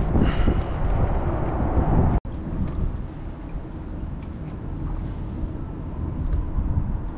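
Wind buffeting the microphone, giving a low, gusty rumble, with a brief sharp dropout about two seconds in where the audio cuts.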